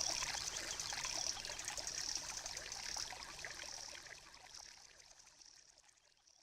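Background music fading out to silence, mostly a hissing, shaker-like beat that repeats at an even pace.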